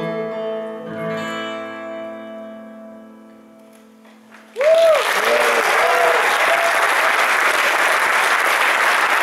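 The last chord of a live song rings out and fades away. About four and a half seconds in, the audience starts applauding loudly and steadily, with a few whoops and cheers just after it begins.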